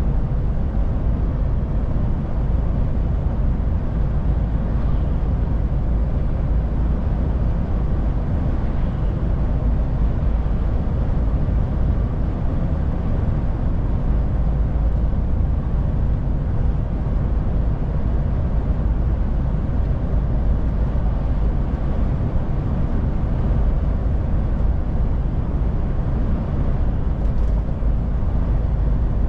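DAF truck driving steadily: a constant low rumble of engine and road noise.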